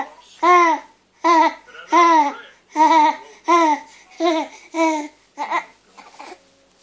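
Baby laughing hard, one loud voiced 'aah' laugh about every three-quarters of a second, growing weaker and stopping near the end.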